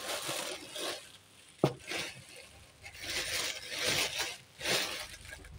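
Thin clear plastic bag crinkling and rustling in patches as hands rummage through the costume jewellery inside it, with one sharp metal clink about a second and a half in.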